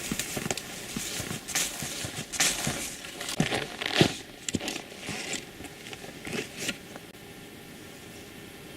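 Irregular rustling and crackling close to the microphone, with scattered sharp clicks, stopping about seven seconds in and leaving only a faint hiss.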